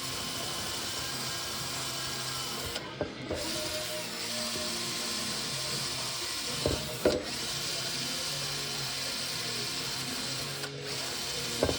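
Small handheld electric power tool running steadily with a high hiss, easing off briefly about three seconds in and again near the end.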